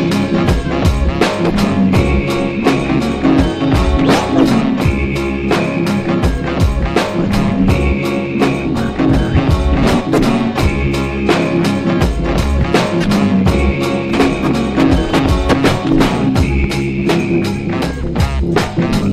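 Rock-style music with drum kit and guitar playing a steady, driving beat.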